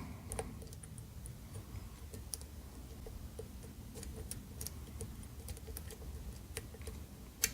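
Faint, irregular metallic clicks and light scraping of a flag pick probing the pins of a Basi BM dimple lock cylinder under tension, with one sharper click near the end.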